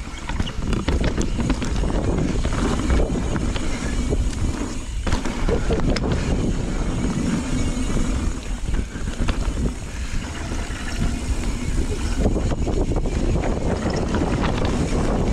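Knolly mountain bike riding fast down dirt singletrack: tyres rolling over dirt and roots, with a steady rumble, many small rattles and clicks from the bike, and wind buffeting the action-camera microphone.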